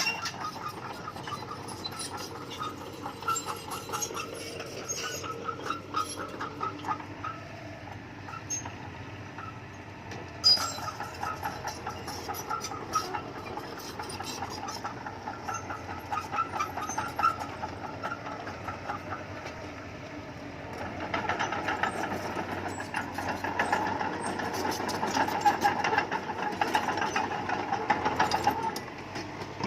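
Crawler bulldozer working, its diesel engine running under the clanking and squeaking of its steel tracks. It grows louder about two-thirds of the way through, then drops off just before the end.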